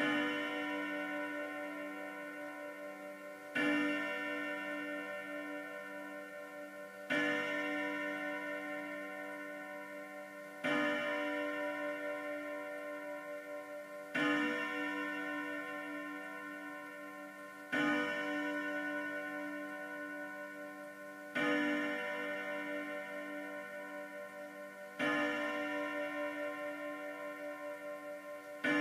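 Vedette pendulum wall clock striking the hour at twelve o'clock: slow, evenly spaced strikes about every three and a half seconds, nine of them here, each ringing out with rich overtones and fading slowly until the next.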